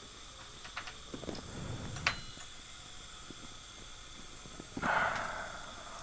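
Small clicks of metal dental instruments and implant parts being handled, with one sharp metallic clink about two seconds in. About five seconds in comes a short burst of hiss that fades away, over a steady background hiss.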